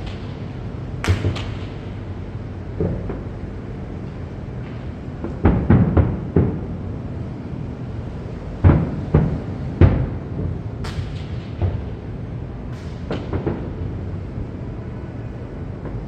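Fireworks shells bursting: irregular booms and cracks, a quick cluster of several about five to six seconds in and another three about nine to ten seconds in, over a steady background rumble.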